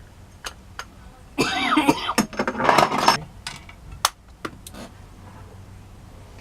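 A man coughing, in a loud rough burst lasting a couple of seconds, with a few sharp clicks and taps before and after it.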